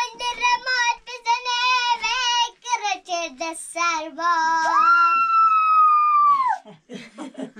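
A young child singing in a high voice, short sung syllables, then one long high note that slides up, holds for about two seconds and drops away.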